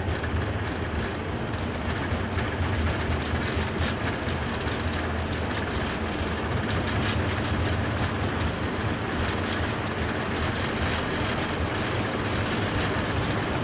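Airbus A330-300 at takeoff thrust, accelerating down the runway, heard inside the cockpit: a steady deep rumble of engines and rolling wheels, with a run of light rapid knocks from the wheels on the runway surface.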